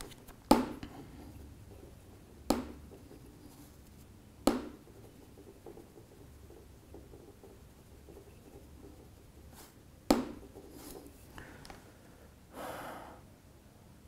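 A screwdriver pressed and scraped across the glass back of a Huawei Nova 3i in a scratch test. Faint scraping runs between sharp knocks, three of them about two seconds apart in the first five seconds and another about ten seconds in, with a short soft hiss near the end.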